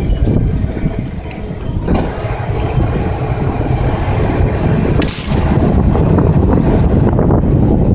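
1990 Ford Bronco's engine running while driving off road, with a broad rushing noise building from about two seconds in and easing off near the end.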